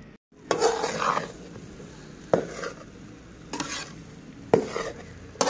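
Slotted metal spatula stirring and scraping gram flour (besan) as it roasts in ghee in a metal kadhai, under a steady sizzle. A scraping stroke comes about once a second, some with a sharp clink of the spatula against the pan.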